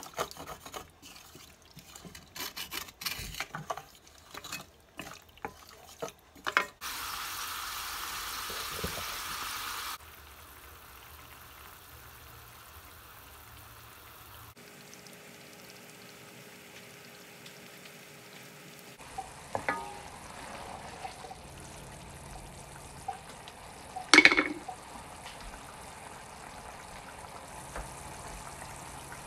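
Spoon stirring and scraping in a stainless steel pan of onions, olives and sauce, with a hiss of sizzling liquid for a few seconds about seven seconds in. The sauce then simmers quietly, with a single sharp clink of utensil on pan near the end.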